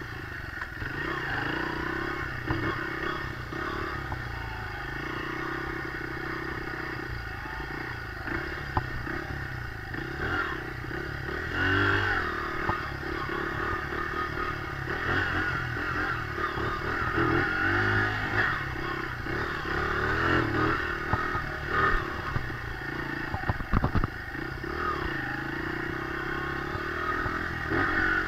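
Dirt bike engine running while being ridden, its revs rising and falling with the throttle, with a couple of sharp knocks in the second half.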